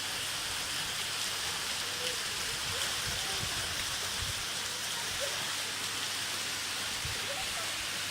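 Small waterfall: a steady rush of falling and splashing water.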